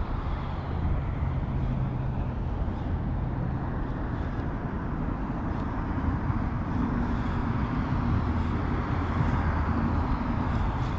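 An engine running steadily with a low hum over a noisy background, its pitch shifting partway through.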